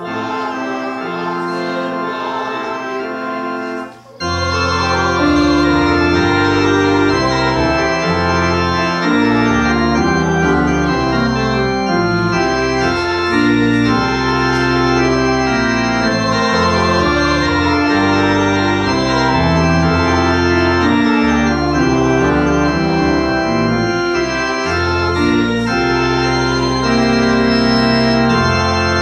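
Organ playing held chords over a sustained bass line. The music breaks off briefly about four seconds in, then comes back louder.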